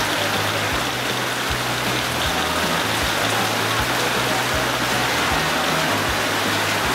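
Heavy tropical rain pouring steadily, under background music with a slow, regular beat and a stepping bass line.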